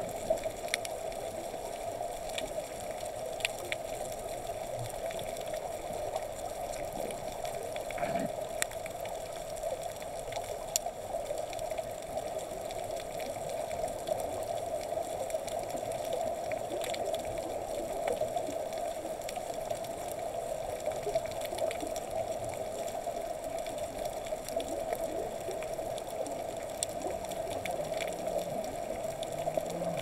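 Underwater reef ambience: a steady, muffled rush of water noise with faint clicks scattered through it.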